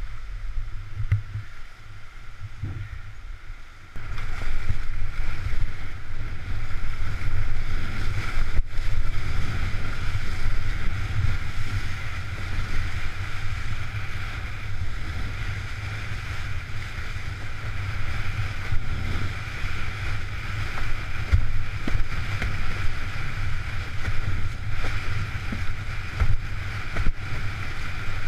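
A windsurf board (Fanatic Shark 105 L) sailing in strong wind: wind rumbling on the microphone over rushing water. It gets louder about four seconds in.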